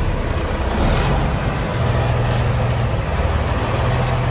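Truck engine running steadily with a low hum while the truck is driven.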